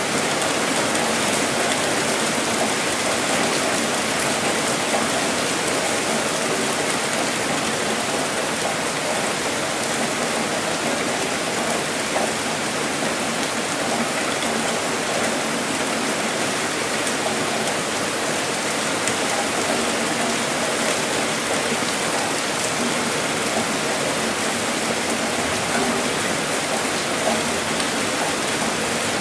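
Steady rainfall: an even, unbroken hiss of rain with no rumble of thunder.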